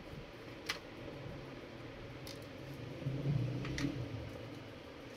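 A few faint clicks of a screwdriver working the screws that hold a monitor's power board in its sheet-metal chassis, with a brief low hum a little after halfway.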